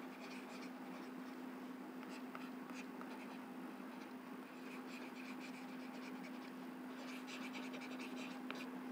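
Faint scratching of a stylus stroking across a pen tablet as words are handwritten, the strokes coming more densely about seven seconds in, over a steady low hum.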